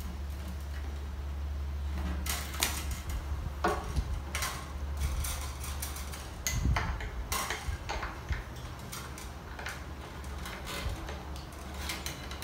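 Small metallic clicks and clinks from handling a 12-string guitar's tuning pegs, string and plastic string winder during restringing. A low steady hum sits underneath and fades out about eight seconds in.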